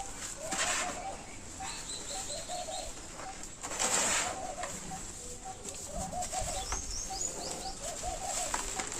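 Dry roasted dirt crumbling and crunching, louder about half a second in and again about four seconds in. Birds call repeatedly in the background, with a few high chirps.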